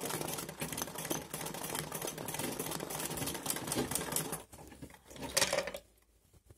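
Traditional black domestic sewing machine (kara makine) stitching freehand embroidery, the needle running in a rapid, dense clatter of stitches. It stops about four and a half seconds in, with one brief louder sound about a second later.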